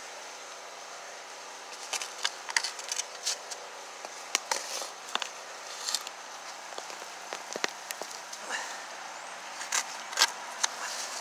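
Shovel blade digging into dry sandy soil and leaf litter, with irregular sharp crunches and scrapes, several in quick succession at times.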